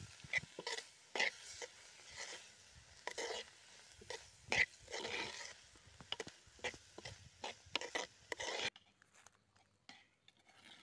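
Sliced onions being stirred in a clay pot: irregular scraping and rustling strokes with a few sharp clicks, cutting off abruptly near the end.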